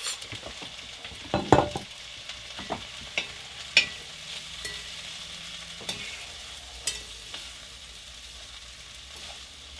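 Dal of split peas, spices and garlic sizzling in a pan while being stirred: a steady sizzle with a utensil knocking and scraping against the pan now and then, the loudest knocks about one and a half seconds in.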